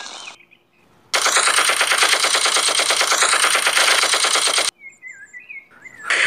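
Machine-gun fire sound effect: one sustained burst of rapid, evenly spaced shots lasting about three and a half seconds, starting about a second in and cutting off suddenly. Another loud noise begins just before the end.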